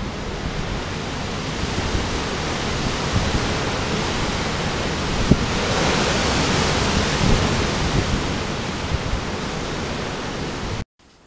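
Hurricane wind and driving rain, a steady rushing roar with a rumbling low end that swells louder midway and eases again, then cuts off suddenly near the end.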